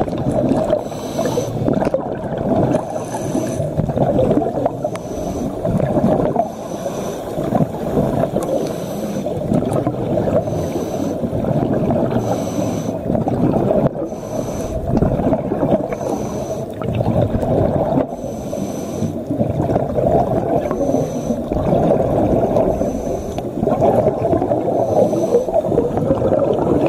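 Muffled underwater noise picked up by a camera submerged in the sea: a steady, low rushing of water, with short hissy bursts repeating about every two seconds.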